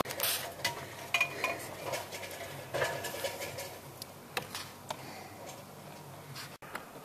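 Irregular light clicks, taps and scrapes of roofing and siding material and tools being handled and worked.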